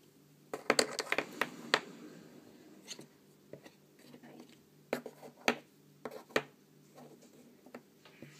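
Small hard resin charms clicking and tapping as they are handled on a tabletop: a quick cluster of clicks about a second in, then a few single sharp clicks spaced out, over a faint steady hum.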